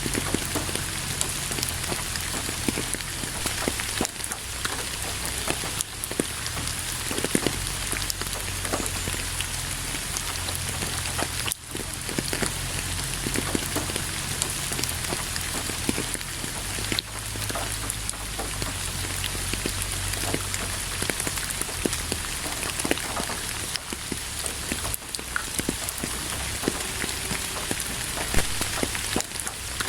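Steady rain falling on a hard surface, with many individual drops ticking close by. It stops very briefly about halfway through and once or twice elsewhere.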